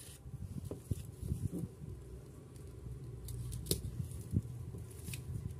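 Scissors cutting through origami paper in scattered short snips, with paper rustling as it is handled.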